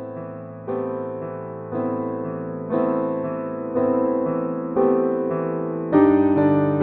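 Background music: slow electric-piano or keyboard chords, a new chord struck about once a second and swelling louder.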